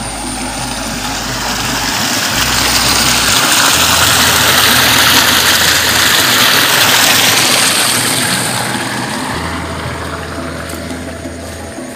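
Water rushing through a narrow concrete irrigation channel. It swells to its loudest midway and then fades again.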